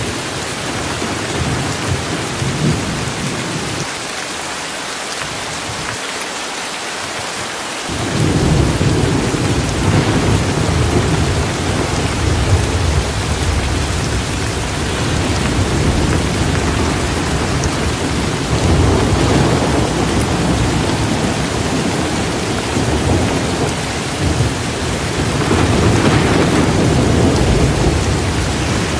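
Steady rain with low rolling thunder that fades for a few seconds, comes back strongly about eight seconds in, and swells again twice later on.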